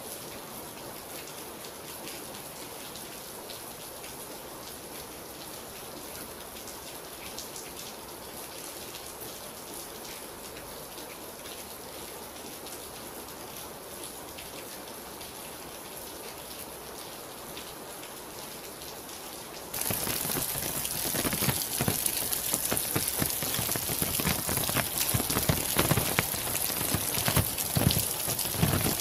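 Rain falling steadily. About two-thirds of the way through it cuts abruptly to louder, closer rain with many separate drops striking a surface.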